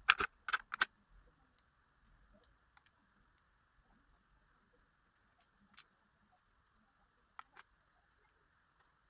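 Small metal clicks and ticks as pins are worked out of a disassembled pin-tumbler padlock: three sharp clicks within the first second, then a few faint, scattered ticks.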